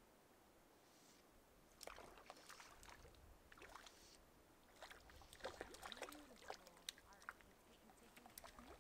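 Faint splashing and sloshing of water as a hooked trout is played close to the shore on a fly line, in scattered short bursts.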